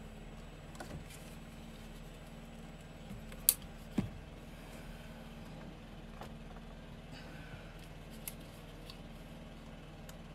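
Gas-powered leaf blower running steadily outside the bus, heard as a muffled low hum, with a few sharp clicks and taps close by.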